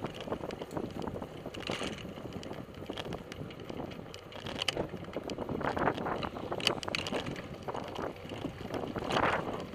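Bicycle riding on pavement: steady tyre and road noise with scattered rattles and clicks from the bike, and wind buffeting the microphone in swells.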